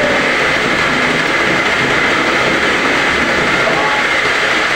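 Home-assembled semi-automatic round gallon washing machine running: a loud, steady mechanical noise with no change.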